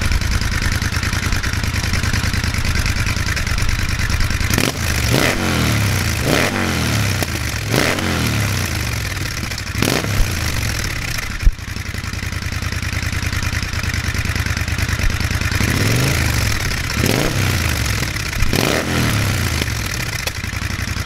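Triumph Thruxton 1200 parallel-twin engine running through a TEC Dueller 2-2 big-bore exhaust with the 6-hole quiet baffles fitted. It idles and is revved in short throttle blips, several times, each rising and falling back to idle. Two sharp clicks come near the middle.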